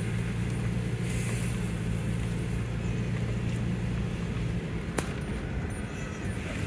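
Pickup truck engine and road noise heard from inside the cab while it tows a camper slowly along a rutted dirt road: a steady low drone that eases off about four and a half seconds in, with a single sharp click about five seconds in.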